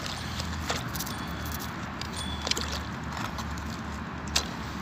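A magnet-fishing magnet on a rope stirring the water against a canal wall, over a steady low rumble, with three sharp clicks, the loudest near the end.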